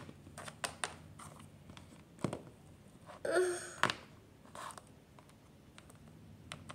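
Small plastic toy figures being picked up and set down on a wooden floor by hand, giving a scatter of light clicks and taps. About three seconds in comes a short breathy voiced sound, like a gasp or sigh.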